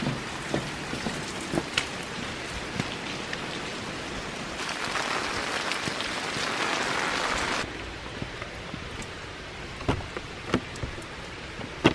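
Steady rain falling and pattering on wet ground and foliage, with scattered sharp drop taps close by. The rain noise grows louder about four and a half seconds in and drops off suddenly just before eight seconds, with a few sharper taps near the end.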